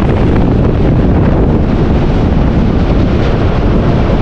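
Wind buffeting the microphone over the steady rumble of an Indian Railways express train running along, heard from the side of the moving coach.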